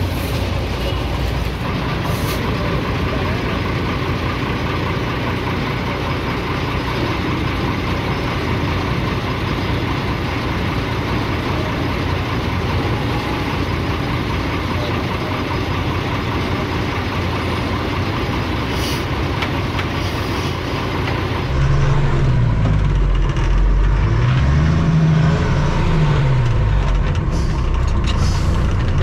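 Shaktiman (MAN 415) military truck's diesel engine running with a steady, rough clatter. About twenty seconds in, it gets louder and the engine note rises and falls twice, as if revved.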